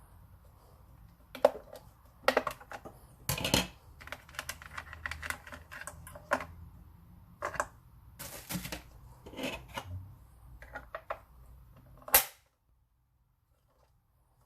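Unboxing handling noises: packaging and the speaker being handled, an irregular run of sharp clicks, taps and short rustles. It ends abruptly in silence about twelve seconds in.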